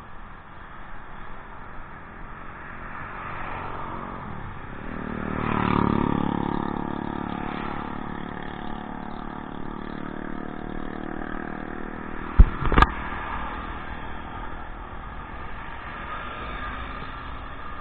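Road traffic with steady tyre and engine noise. A motorcycle passes close by about six seconds in, its engine swelling and dropping in pitch as it goes. Two sharp knocks, close together, come about two-thirds of the way through and are the loudest sounds.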